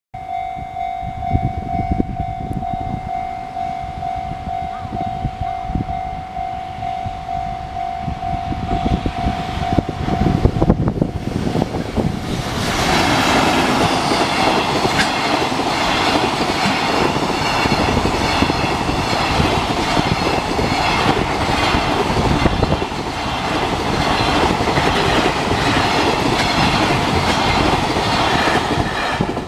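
Japanese level-crossing warning bell ringing in rapid pulses, stopping about ten seconds in. A couple of seconds later a train runs past close by, loud, until the end.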